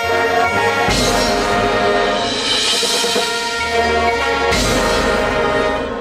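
Marching band playing full, sustained chords, with two heavy accented ensemble hits, about a second in and again about four and a half seconds in.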